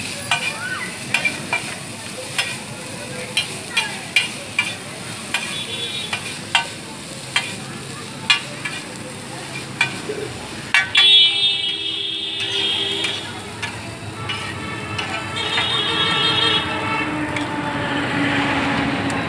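Metal spatulas clacking and scraping on a large flat griddle as chow mein noodles are tossed and stir-fried, over a steady sizzle. About eleven seconds in a vehicle horn sounds, and more horn-like tones follow near the end.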